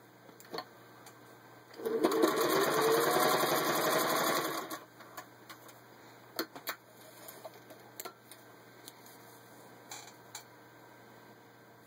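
1936 Singer 201 sewing machine stitching through four layers of vinyl upholstery. About two seconds in, the motor runs up in pitch with the needle clattering rapidly for about three seconds, then stops. Afterwards there are a few light clicks.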